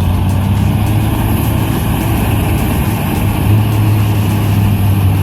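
Heavy diesel machine engine running steadily: a low, even drone that gets a little louder about three and a half seconds in.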